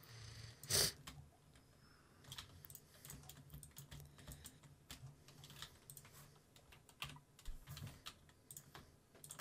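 Computer keyboard keys clicking at an irregular pace while working in design software, with one louder click about a second in.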